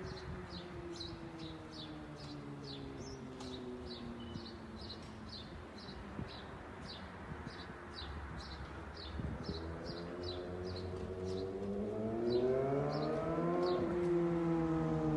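Kawasaki ZX-6R 636 inline-four engine breathing through an Austin Racing GP1R exhaust. Its pitch sinks slowly, then climbs over a few seconds near the end and falls back, louder as it rises. A high chirp repeats about twice a second over it.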